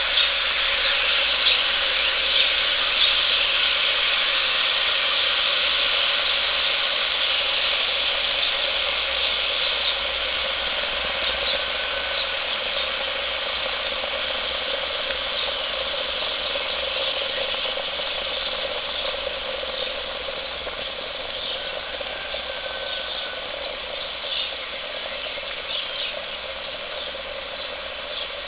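Quicklime slaking in a plastic bucket after water was added: a dense, steady crackling and fizzing as the mix heats up and boils, slowly growing quieter.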